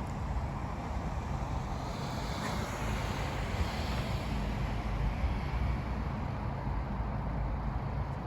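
Subaru Sambar mini truck running, a steady low rumble with wind noise on the microphone.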